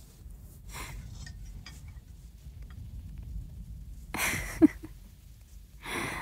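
A woman breathing softly close to the microphone: three airy breaths, the one about two-thirds through ending in a brief voiced sound. A low steady rumble of microphone noise runs underneath.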